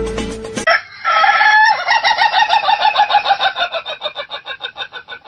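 A rooster crows, one long call starting about a second in, then keeps up a fast run of short clucks. Before that, music cuts off.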